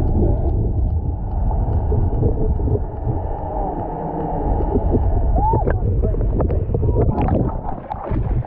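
Muffled underwater sound through a camera housing: a steady low rumble with gurgling water. In the last few seconds come splashes and sharp knocks as the camera nears the surface.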